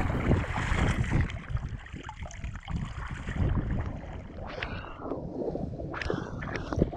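Loch water lapping and sloshing around a camera at the surface, with wind rumbling on the microphone. In the second half, a few sharp splashes as someone wades through the shallows.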